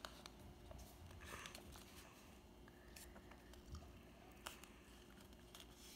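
Faint, sparse rustles and soft clicks of a paper template being handled and creased by hand as it is folded.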